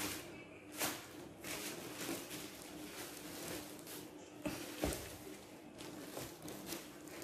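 Irregular rustles and small knocks of someone moving about and handling things, with two sharper thumps about four and a half and five seconds in, over a faint steady hum.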